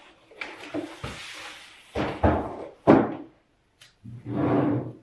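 Long empty cardboard shipping box being lifted and moved aside: a series of dull knocks and scrapes, the loudest about three seconds in, with a longer rustle of cardboard near the end.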